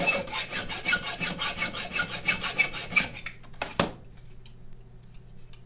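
Hand file rasping back and forth over a weld repair on a metal Snapper mower yoke, about five quick strokes a second, to smooth the weld flush. The filing stops about three seconds in, and a single sharp knock follows.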